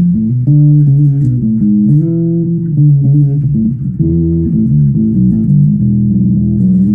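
Zoot Wal-a-Like electric bass played through a Gallien-Krueger amplifier and 1x12 cabinet: a quick run of plucked notes, ending on a long held note.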